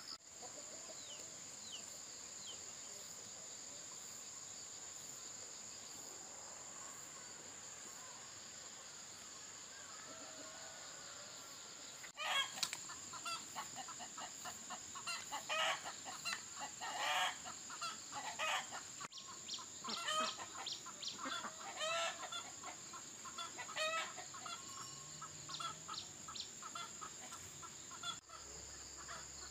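Chickens clucking in quick, repeated calls that start about twelve seconds in, over a steady high-pitched drone of insects.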